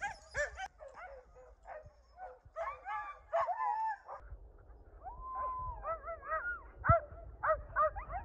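A team of harnessed sled dogs barking and yipping excitedly, several at once, while they are hooked onto the gangline before a run, with one longer held cry about five seconds in. A sharp thump about seven seconds in.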